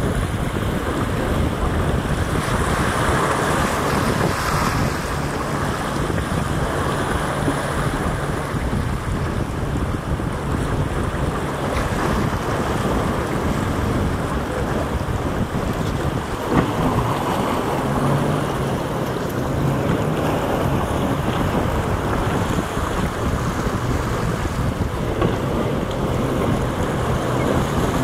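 Wind buffeting the microphone over a boat's engine running steadily with a low hum, and water rushing and splashing.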